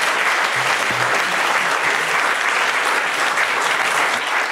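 Audience applauding, a dense, steady clapping of many hands.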